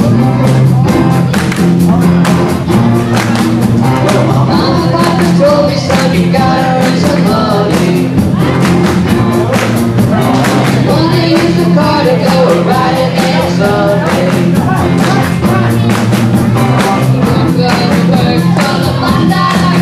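Live rock band playing with electric guitar and drums on a steady, even beat, several young voices singing together into microphones.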